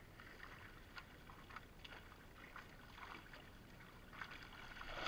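Faint, scattered water splashes and drips as a wet fishing net holding fish is gathered up out of shallow pond water.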